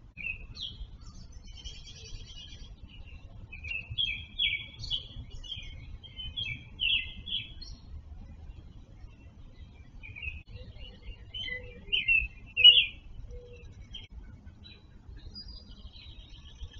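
Several songbirds singing in a dawn chorus: bursts of high chirping and warbled phrases, loudest a little past the middle, with a few short low notes.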